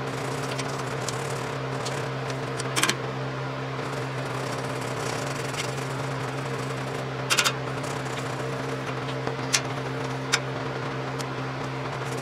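An old toothbrush scrubbing a washing machine's sheet-metal base in two short bursts of quick strokes, about three seconds in and again about seven seconds in, with a couple of light taps later. Under it runs a steady low hum.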